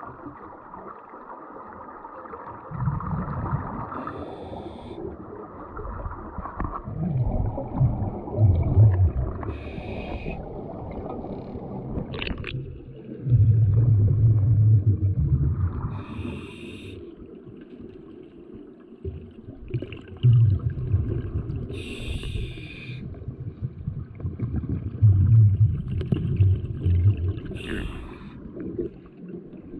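Scuba diver breathing through a regulator underwater: a short hiss of inhalation about every six seconds, each followed by a longer low gurgle of exhaled bubbles.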